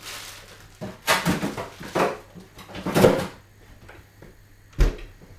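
Frozen food packets and freezer drawers being handled: three short rustling, scraping bursts about a second apart, then a dull thump near the end.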